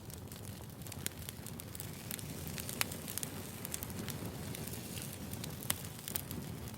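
Wood fire burning, crackling steadily over a low rumble, with a couple of louder pops.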